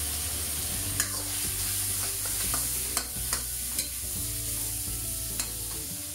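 Eggplant strips sizzling as they are stir-fried in a metal wok, a steel spatula stirring and scraping through them. The spatula clicks sharply against the wok now and then.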